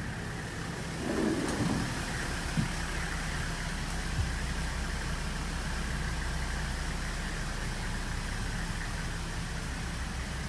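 Hino Liesse II's 1HZ six-cylinder non-turbo diesel idling steadily with a low hum. A brief knock comes about a second in, and two short clicks follow a little later.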